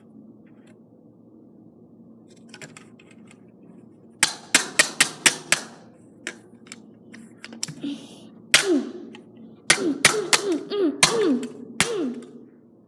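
Scissors striking the plastic casing of a small hairdryer: a quick burst of about six sharp knocks, then after a pause a longer run of blows, several of them followed by a short falling ring.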